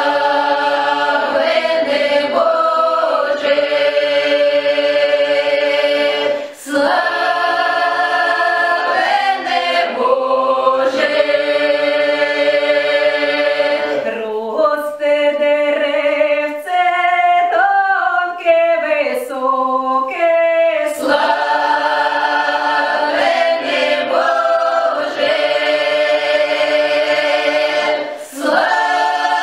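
A mixed folk choir sings a Ukrainian Christmas carol in close harmony, holding long chords. There are brief breathing pauses about six and a half seconds in and again near the end.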